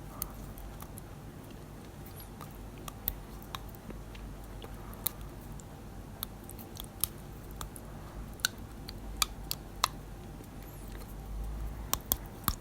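Dental floss being worked between teeth: irregular sharp snaps and clicks as the floss pops through the contact points, a few close together near the end, over a faint low hum.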